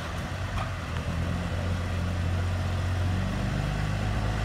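Tow truck's diesel-sounding engine running steadily with a low hum that grows a little louder about a second and a half in, as it works to pull a flooded car out. Rain falls on the floodwater underneath.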